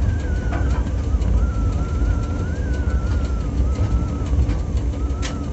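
Freight train of coal wagons rolling past: a steady low rumble with a thin, wavering high squeal running above it, and a sharp click near the end.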